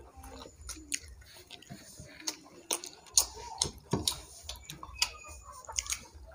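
Quiet hand-eating sounds: fingers mixing rice on the plates and mouthfuls being chewed, heard as a scatter of small irregular clicks and smacks.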